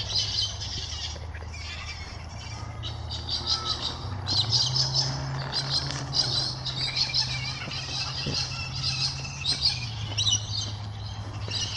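Many birds chirping and twittering at once, quick overlapping high calls, over a steady low hum.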